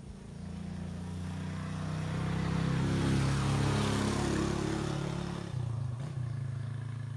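A motor vehicle engine passing by, growing louder to a peak about three to four seconds in and then fading.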